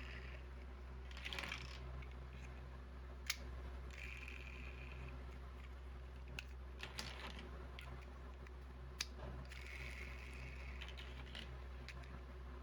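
Plastic toy building bricks being handled: scattered sharp clicks and short rustles, over a steady low hum.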